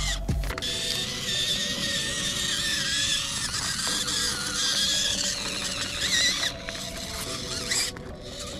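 FMS FCX24 Lemur 1:24 RC crawler's electric motor and gearbox whining, the pitch wavering up and down as the throttle is worked while it climbs over rock. The whine breaks off briefly twice near the end. Background music plays under it.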